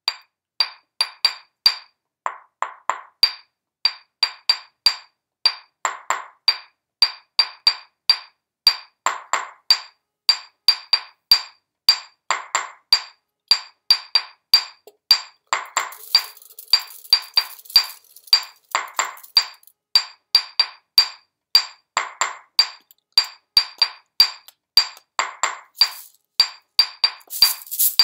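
Stone mortar and pestle played as a percussion instrument: quick syncopated strikes, several a second, each with a short bright clink of ringing stone. Near the end a shaken jar joins in with a dry rattle.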